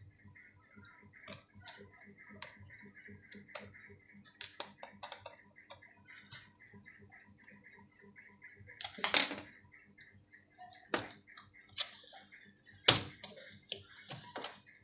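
Plastic bottom casing of a Lenovo IdeaPad 110 laptop being pried open: many small clicks as its clips let go, with a few louder snaps in the second half.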